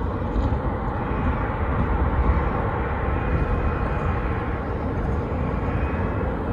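Jet airliner engine noise: a steady rumble with a faint high whine over it.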